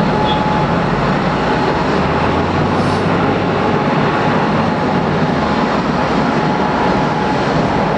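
Rolls-Royce Trent 1000 turbofans of a Boeing 787-8 taxiing past at low thrust: a loud, steady rushing noise with a faint steady whine above it.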